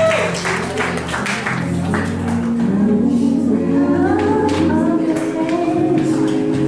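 Music with a singing voice over held low notes.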